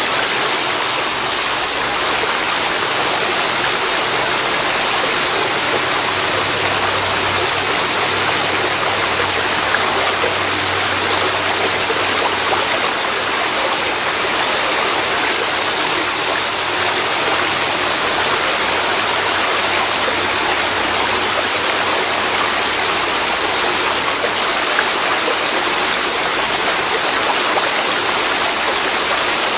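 Waterfall pouring into a river: a steady, loud rush of falling and flowing water, unchanging.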